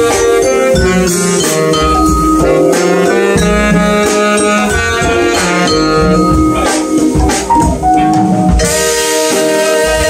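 A small jazz band playing live, with saxophone, vibraphone and drum kit.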